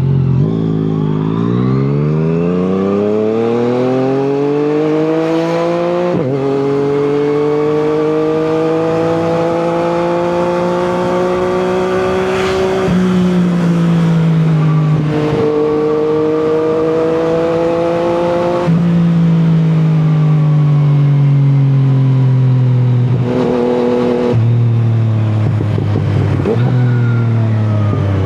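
Yamaha MT-09 three-cylinder engine through an Akrapovic exhaust, pulling up through the gears. The pitch climbs and drops sharply at each shift, about 6 and 13 seconds in. Later the pitch falls in steps as it slows.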